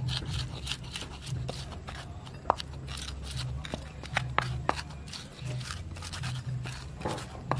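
Pestle pounding and grinding chilies in a cobek mortar for sambal: irregular crunching knocks and scrapes, many short strokes.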